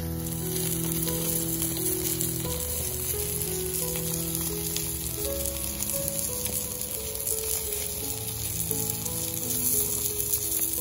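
Whole pompano fish sizzling steadily on the grate of a gas grill, over background music of slow held notes.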